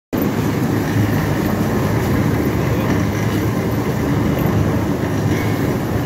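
Industrial soft-brush potato washing machine running, a steady mechanical noise with water spraying.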